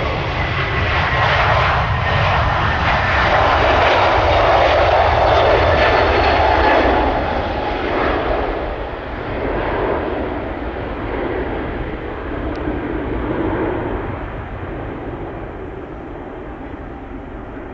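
Airbus A321neo jet engines at takeoff power during the takeoff roll and climb-out. The engine noise is loudest a few seconds in, then fades steadily as the aircraft climbs away.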